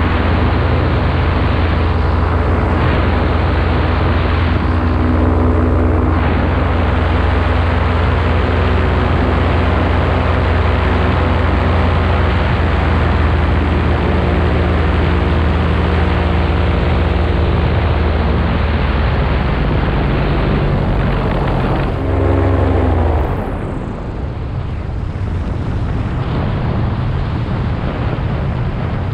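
Paramotor engine and propeller running steadily under power. About 23 seconds in, after a brief change in pitch, the engine is throttled back and mostly wind rush is left as the paramotor comes in low to land.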